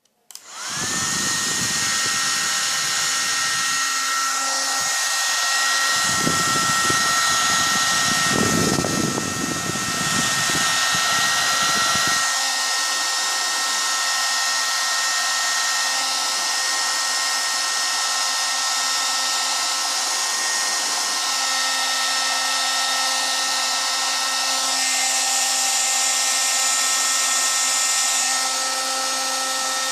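Handheld hair dryer switched on about half a second in and then running steadily, a constant blowing noise with a steady motor whine; a low rumble comes and goes over the first dozen seconds. It is drying the glue on a homemade sponge squishy.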